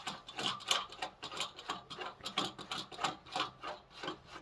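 Large hand-turned tension knob being screwed into the side of a Dobsonian telescope's rocker box, clicking in an even rhythm of about three clicks a second as it is tightened.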